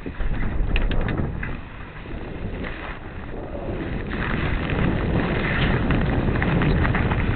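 Wind buffeting the microphone aboard a sailboat under sail, with scattered crackles about a second in and again from about four seconds on.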